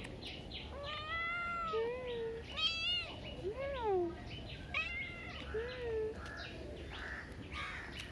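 A young street kitten meowing about six times in quick succession over the first six seconds, each meow rising and then falling in pitch, one or two of them higher and shorter than the rest.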